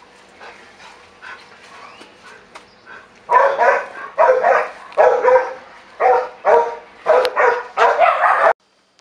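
A young man crying loudly in a run of about eight drawn-out wails, starting about three seconds in and cutting off abruptly near the end.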